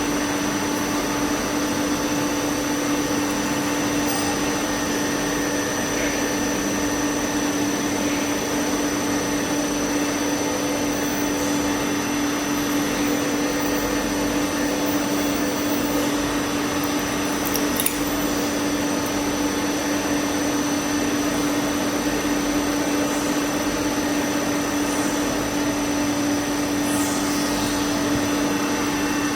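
Automatic hollow pipe making and welding machine for jewellery running steadily: a constant motor hum with an even hiss, and one brief click a little past halfway.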